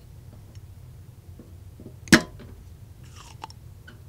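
Spring-loaded solder sucker (desoldering pump) plunger snapping once about two seconds in, a single sharp click, as solder is sucked from a circuit board joint. A few faint ticks of handling follow.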